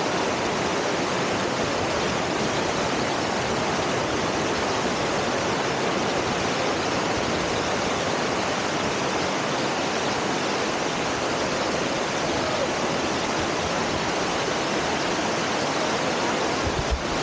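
Steady rushing of river water, with a couple of short low knocks near the end.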